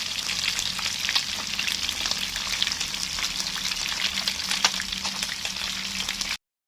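Food sizzling in hot oil in a pan: a steady hiss with scattered pops and crackles that cuts off abruptly near the end.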